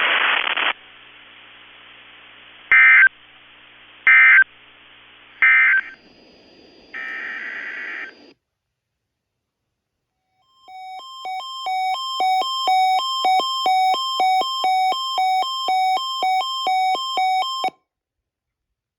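Emergency Alert System end-of-message data bursts: three short, loud digital screeches about a second apart that close out the weekly test. After a pause comes about seven seconds of rapid electronic beeping that alternates between two tones.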